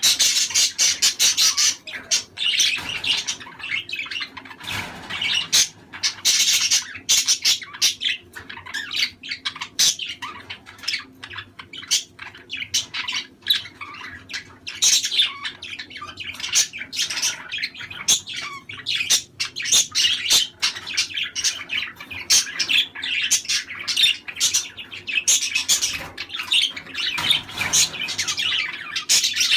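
A flock of budgerigars chattering and warbling, with rapid chirps, clicks and squawks that go on without a pause. This busy flock chatter is the kind played to pet budgies to stimulate them to breed.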